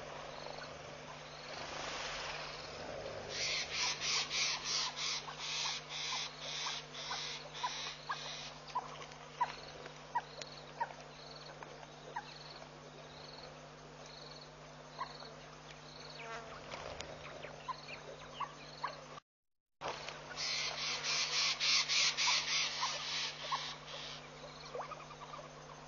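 Outdoor bush ambience: a pulsing insect buzz comes in two bouts, a few pulses a second, the second starting after a brief gap in the sound. Under it run a faint, evenly repeating chirp and scattered short high calls, over a steady low hum.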